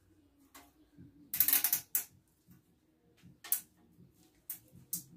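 Plastic cable ties being pulled tight through their locks: short bursts of rapid ratcheting clicks, the longest about a second and a half in and shorter ones near the end.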